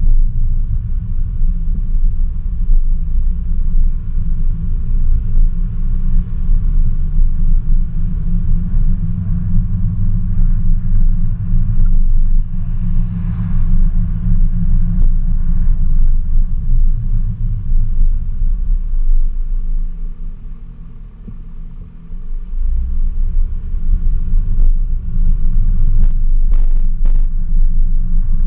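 Steady low rumble of a car driving, heard from a camera mounted on its hood: engine and wind noise together. It eases off for a couple of seconds about three quarters of the way through, then picks up again, with a few sharp ticks near the end.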